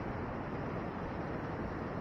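Steady, low rushing noise of ocean surf breaking on a sandy beach.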